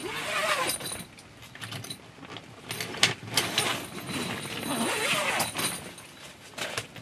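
Boat tent's bow hatch covers being handled: tent fabric and mosquito netting rustling and flapping, with scrapes and clicks, in several uneven bursts.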